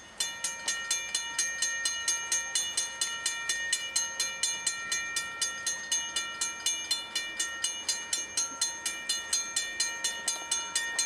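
Railroad grade-crossing warning bell starting up suddenly and then ringing steadily, about four strikes a second, each ringing on. It is the crossing activating for an approaching train.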